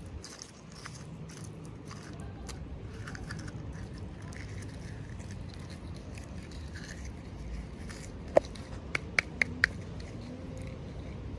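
Small packaging and toy pieces being handled, with light rustling and scraping, a sharp click about eight seconds in, and a quick run of four clicks just after.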